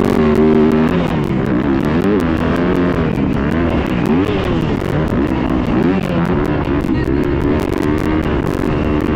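Motocross dirt bike engine heard close up from a camera on the bike while racing, revs rising and falling over and over through jumps and turns, with many short sharp clicks throughout.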